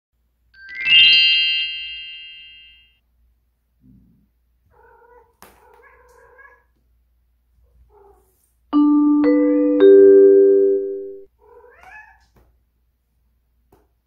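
Bright chime notes: a ringing chord about a second in that slowly dies away, then three struck notes one after another around nine seconds that ring for about two seconds. Between and after them come faint cat meows with a gliding pitch.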